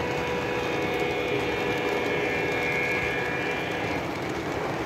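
O gauge model freight train running past, led by Chessie System diesel locomotives: a steady rolling rumble of wheels on track, with a few steady tones over it that fade out about four seconds in.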